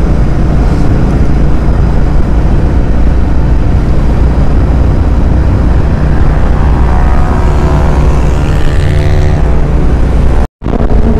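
Royal Enfield Interceptor 650 parallel-twin running on the move, under heavy wind rush on the action camera's microphone. Between about six and a half and nine and a half seconds in, an engine note rises in pitch. The sound cuts out completely for a moment near the end.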